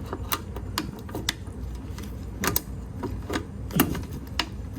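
Scattered, irregular light clicks and knocks of hands handling the camera and hardware, over a steady low hum.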